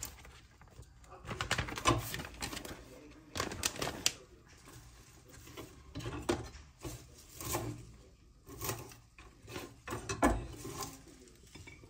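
A string of irregular taps, clicks and knocks of objects being handled, some with a short ring after them.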